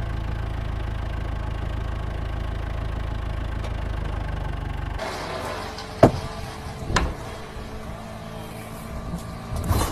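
An engine running with a steady low hum, which stops abruptly about halfway through; then two sharp knocks about a second apart over a faint background.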